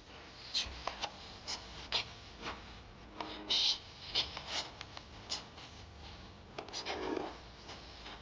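Quiet, irregular scratching and rustling with small clicks, like something scraping or brushing against a surface, with a longer rustle near the end.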